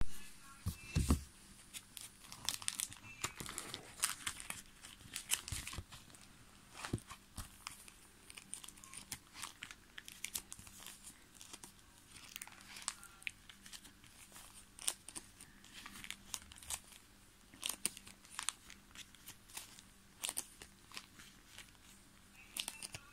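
Plastic sleeve pages of a trading-card binder being turned by hand, crinkling and rustling with many irregular small clicks.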